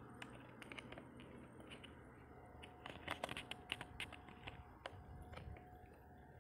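Faint, irregular clicks and taps, coming in a quick cluster about three seconds in, over quiet background hiss, with a faint steady tone in the second half.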